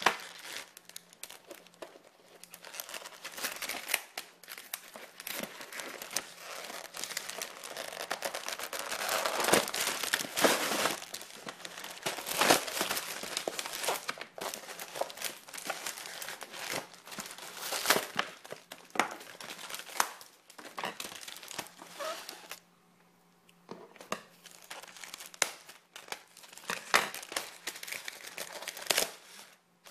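Packaging being handled during an unboxing: a plastic-coated wrapper crinkling and tearing, with a cardboard box and styrofoam insert rustling and clicking as they are moved. It goes quiet for about a second, about three-quarters of the way through.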